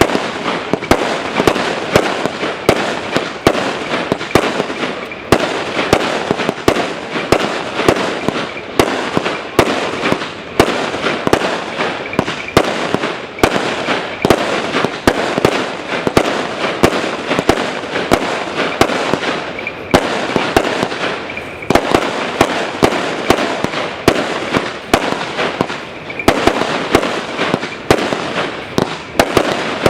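A 100-shot consumer fireworks cake of silver palm shells with tracers firing in rapid succession: sharp bangs about two to three a second over a continuous dense crackle.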